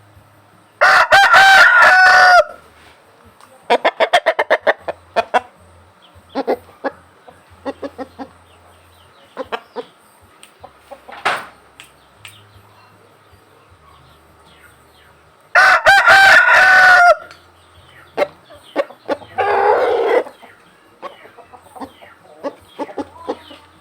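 Rooster crowing twice, each crow about a second and a half long and the loudest sounds here. Between the crows come quick runs of short clucking calls from chickens.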